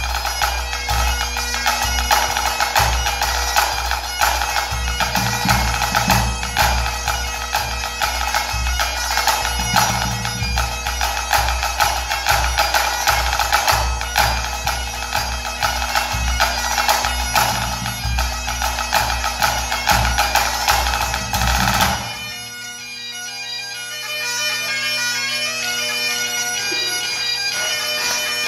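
Pipe band playing: Great Highland bagpipes sounding a melody over their steady drone, with the band's drums beating a dense rhythm. About 22 seconds in, the drums stop suddenly and the pipes carry on alone.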